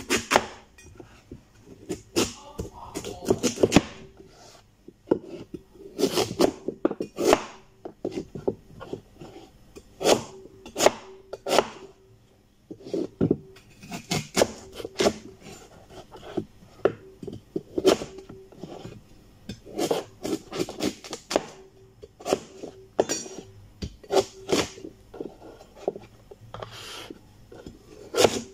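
Metal cleaver chopping peeled taro into chunks on a wooden cutting board: irregular knocks as the blade cuts through onto the board, one or two a second.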